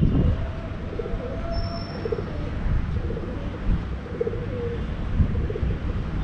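A pigeon cooing in a string of short, low, repeated calls, over a steady low rumble of city traffic and wind.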